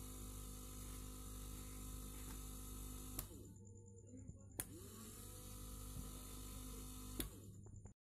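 Small DC motor running steadily on a 12 V transformer adaptor. About three seconds in its rocker switch clicks off and the motor winds down. It is switched on again a little over a second later, spins up to speed, and is switched off once more near the end.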